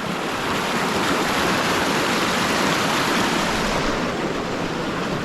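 A fast-flowing river rushing over rocks near a waterfall, a steady rushing hiss. The river is running high and quick with floodwater.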